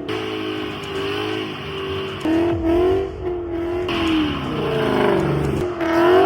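Ford Mustang GT's 5.0-litre V8 being driven hard, revving up and down repeatedly so its pitch swings several times.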